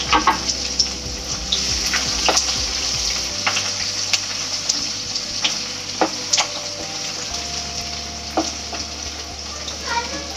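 Chopped garlic, green chilli and ginger sizzling in hot mustard oil in a kadhai, frying on a medium flame while being stirred. A steady sizzle, with a few sharp knocks of the stirring spoon against the pan.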